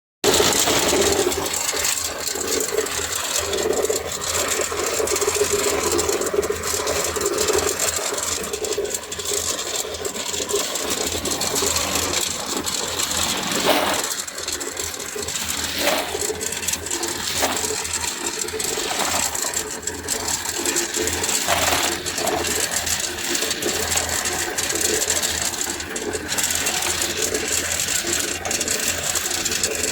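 Tube ice machine with a Refcomp compressor running, a steady low hum under continuous rattling and clattering.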